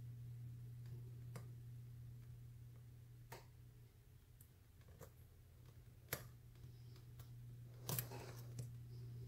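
Faint, scattered clicks of a lock pick and tension wrench working the spool pins inside a brass pin-tumbler padlock, with a sharper cluster of clicks near the end, over a steady low hum.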